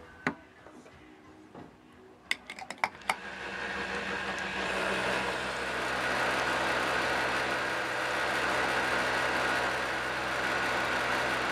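A few sharp clicks, then from about three seconds in a petrol station fuel pump starts and runs steadily: a low motor hum under the hiss of fuel flowing into a car's tank.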